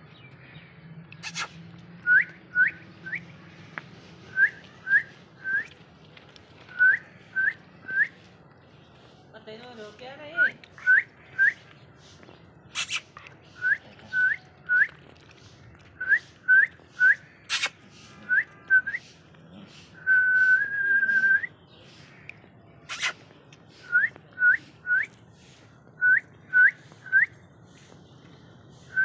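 A person whistling short rising notes in quick groups of two or three, over and over, with one longer held whistle about two-thirds of the way through. A few sharp clicks are heard between the whistles.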